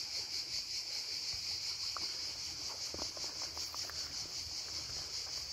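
Insects chirring steadily: a high, even buzz that pulses several times a second.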